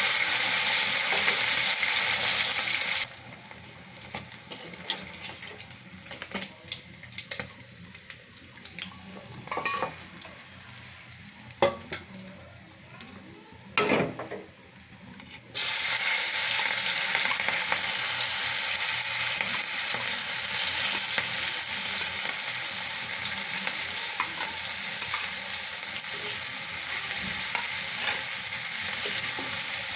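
Food sizzling in hot oil in a pan. About three seconds in, the sizzle cuts off abruptly into a quieter stretch of a dozen seconds with a few clicks and knocks of utensils, then the steady sizzle returns just as suddenly.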